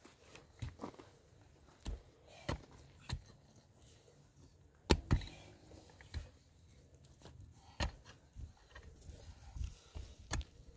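Scattered knocks and thuds, about a dozen at uneven intervals, the loudest about five seconds in.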